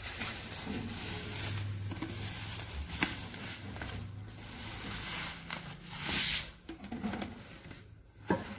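Bubble wrap rustling and crackling as it is pulled off a packed appliance, with a few sharp crackles and a louder rustle about six seconds in.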